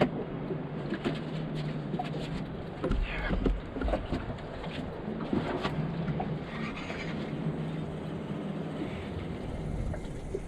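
Water slapping and lapping against a small fishing boat's hull, with scattered small knocks and a steady low hum underneath.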